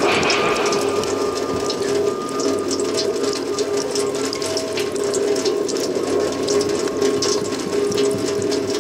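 A steady drone of several held tones with dense, rapid clicking and rattling over it.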